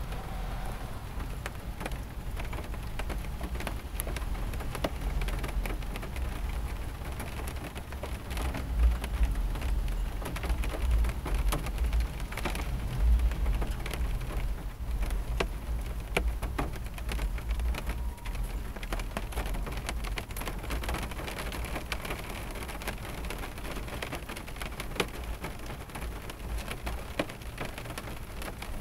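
Rain falling on a car's windshield and roof, heard from inside the car: a steady hiss with many individual drops clicking on the glass. A low rumble swells and fades through the middle.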